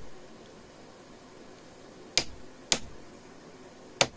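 Three sharp taps of a hammer on a brass punch: two about half a second apart a little over two seconds in, and one near the end. The punch is driving a Gew 98 rifle's trigger guard and magazine floor plate down out of the wooden stock, a little at a time.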